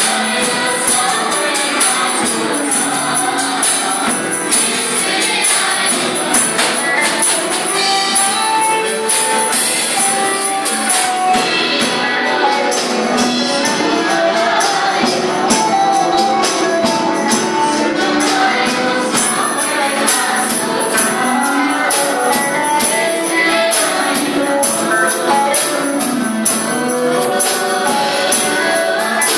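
A live worship band playing a Nepali praise song: a group of singers in unison over acoustic guitar and drum kit, with a bright, jingling beat running steadily underneath.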